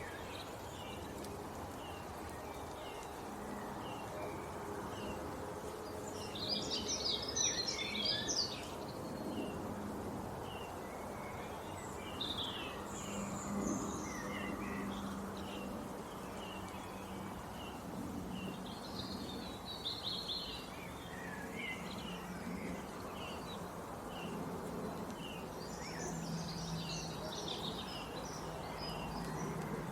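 Wild birds chirping and singing over a steady background hiss, with louder bursts of song every several seconds between a run of short, regular chirps.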